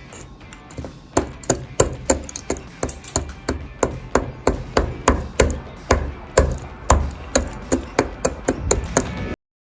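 Knife chopping on a cutting board: a steady run of sharp knocks, about three a second, each with a dull thud. It starts about a second in and cuts off abruptly near the end.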